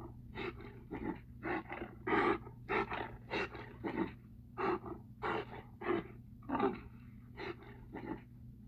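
Mapinguari creature sound effect: a rapid run of short, rough animal-like calls, two to three a second, over a steady low hum.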